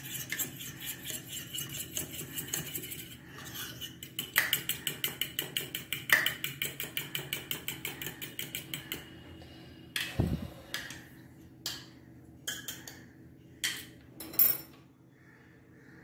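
Metal spoon beating an egg in a small bowl: quick, rhythmic clinks of the spoon against the bowl, about four to five strokes a second, stopping about nine seconds in. A few separate knocks and taps follow.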